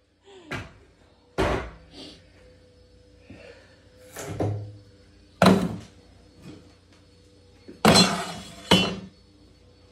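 Hollow wooden knocks and clatter of particleboard desk parts being handled and dropped during disassembly: about seven separate knocks, the loudest a little past the middle and two close together near the end.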